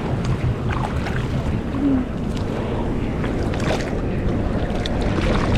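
Steady rush of ocean water and wind noise on the microphone, heaviest in the low end, with scattered small splashes.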